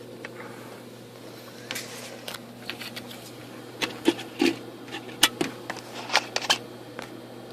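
Car engine idling with a steady low hum, and an irregular run of sharp clicks and taps from about two seconds in until shortly before the end.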